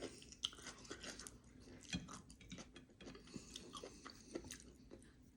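Faint chewing of food close to the microphone, with scattered small crunches and mouth clicks.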